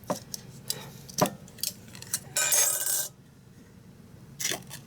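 Lid of a jar of refrigerator pickles being worked open: a few light metallic clicks, then a brief scraping rush about two and a half seconds in, and another click near the end.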